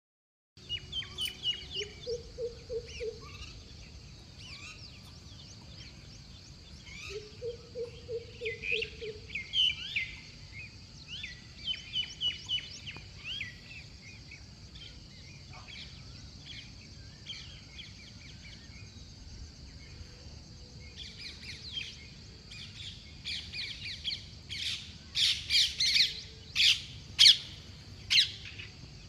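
Dawn chorus of several songbirds chirping and trilling, with a lower rapid series of notes twice early on and a steady high hiss underneath. The chirps grow louder and sharper in the last few seconds.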